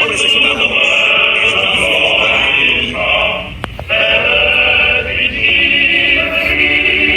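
Music with choir-like singing voices, loud throughout, breaking off briefly about three and a half seconds in with a click before resuming.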